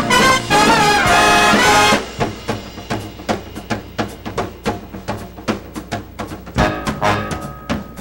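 Big-band jazz music: the brass section plays a loud phrase that ends about two seconds in, then a quieter beat of drum hits carries on, with held horn notes coming back near the end.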